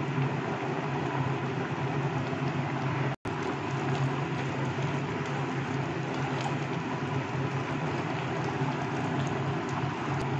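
Sugar syrup with dates, cashews and raisins boiling hard in a kadai over a gas flame turned up high: a steady bubbling, with a steady low hum under it. The sound cuts out for a moment about three seconds in.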